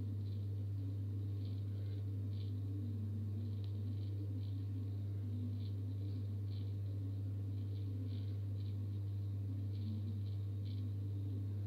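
Aquarium pump running with a steady low hum, with faint irregular ticks over it.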